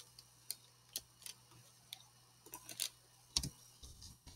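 Faint clicks of a computer mouse and keyboard, about a dozen at uneven intervals, over a faint steady low hum.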